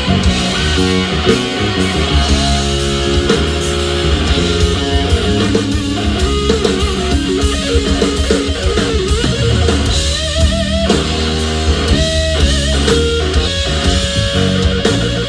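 Live band music with no singing: an electric guitar plays a lead line with bent, wavering notes over bass and drums.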